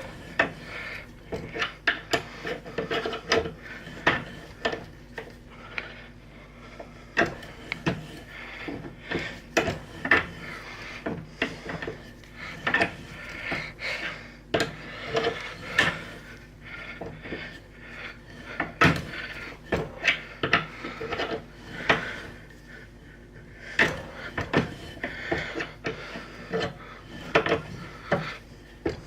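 Hand-tool work on a small aluminum part: irregular clicks and knocks with scraping and rubbing in between, and no machine running.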